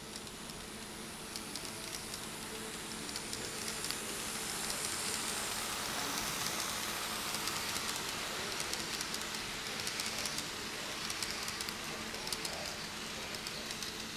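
Kato E233 N-scale model train running along layout track: a steady rolling rumble of small wheels on the rails with fast light ticking, growing louder over the first few seconds as the train comes past.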